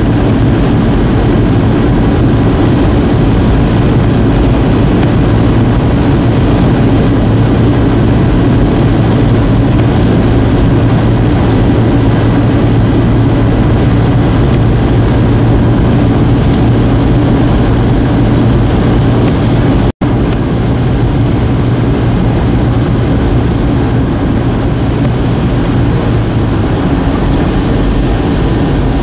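Steady road and engine noise of a car driving, with a low drone underneath. The sound breaks off for an instant about two-thirds of the way through, then carries on the same.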